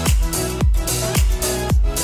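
Electronic dance music with a steady beat of about two deep kick drums a second, hissy high percussion between the kicks, and held notes underneath.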